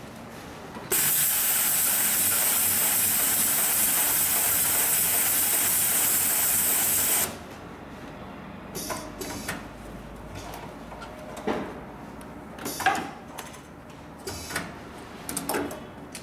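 Hightex 733EX heavy-duty long-stitch sewing machine running as it sews, heard as a loud steady hiss that starts sharply about a second in and stops after about six seconds. After that come scattered clicks and knocks as the sewn piece is handled and lifted off the machine bed.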